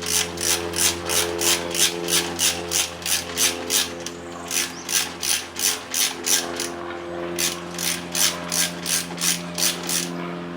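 Socket ratchet wrench clicking in quick rhythmic strokes, about three a second, with a couple of short pauses, as a motorcycle exhaust mount bolt is being loosened.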